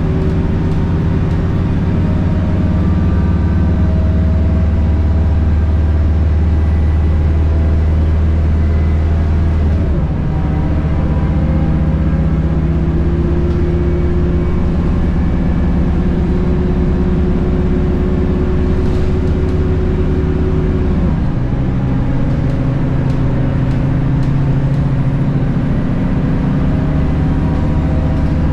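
Scania K230UB bus's 8.9-litre DC9 diesel engine and ZF Ecomat 6HP502C six-speed automatic heard from inside the cabin, pulling as the bus gathers speed. The engine note rises slowly, then drops as the gearbox shifts up about ten seconds in and again about twenty-one seconds in.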